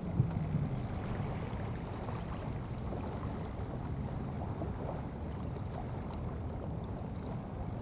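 Steady low rumble of wind on the microphone over water noise, with a brief bump just after the start.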